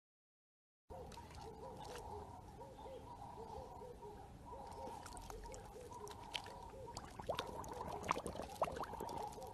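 Husky whining in a run of short rising-and-falling whimpers, a few per second, starting about a second in, with small splashes and laps of pool water as it dips its muzzle in, most of them near the end.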